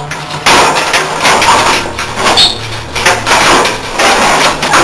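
Sheet-metal heat pump cabinet panel being wrenched back and forth by hand: repeated surges of metal rattling, scraping and flexing, about one a second.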